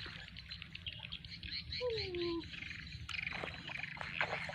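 Small birds chirping, with one falling whistled call about two seconds in, over a steady low hum. A few sharp clicks come near the end.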